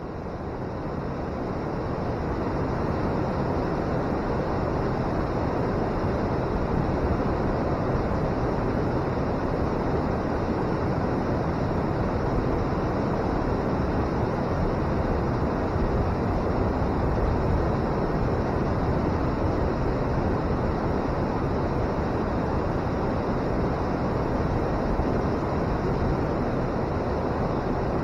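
Water pouring over a river weir and churning in the pool below: a steady roar, fading in over the first couple of seconds.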